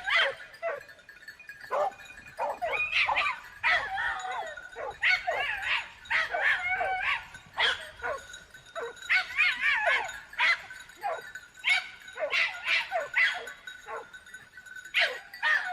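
Dog yipping and whining in a quick series of short, high-pitched cries that waver up and down in pitch, with a faint steady high tone behind them.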